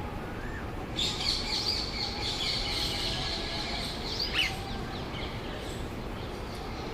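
A flock of birds chirping and chattering in a dense, overlapping run from about a second in until past the middle, with one louder sweeping call near the end of the run, over a steady low background rumble.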